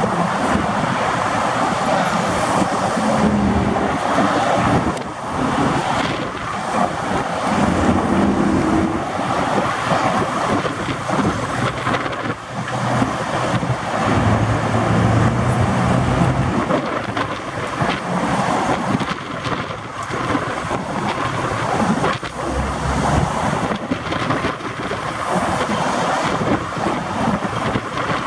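Steady road traffic noise of cars and trucks moving on the bridge, tyres and engines, with wind buffeting the microphone.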